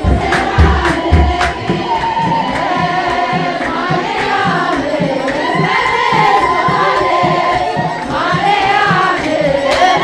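A crowd singing a church hymn together over a steadily beating drum. The drum beats are loudest for about the first second and a half, after which the voices carry the sound.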